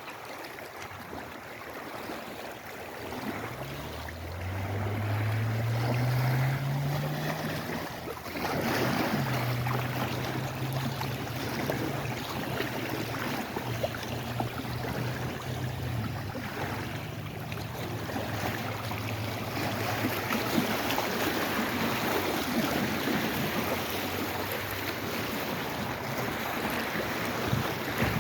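Lake Erie waves washing against the shore with wind on the microphone. A motor's low hum comes in about four seconds in, rising in pitch for a few seconds, then holds steady and fades away after about twenty seconds.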